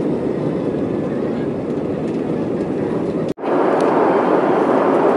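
Cabin noise inside an Airbus A320-family jet airliner: the steady rush of the engines and airflow as it speeds down the runway for takeoff. About three seconds in it breaks off for an instant and resumes as the slightly brighter, steady rush of the plane in flight above the clouds.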